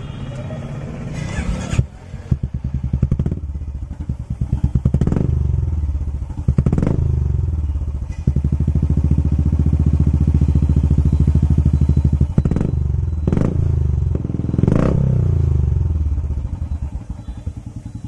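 Royal Enfield Classic 350's single-cylinder engine running through an aftermarket chrome silencer with a smooth, bassy note, idling and then revved: two quick throttle blips, a rev held for about four seconds, two more blips, then dropping back to idle.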